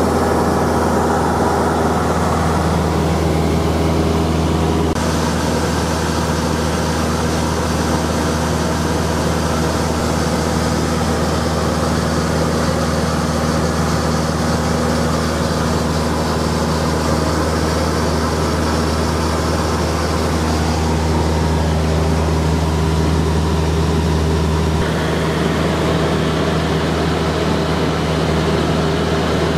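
Cessna 172's piston engine and propeller droning steadily, heard inside the cabin in cruise. The pitch of the drone shifts abruptly about five seconds in and again near the end.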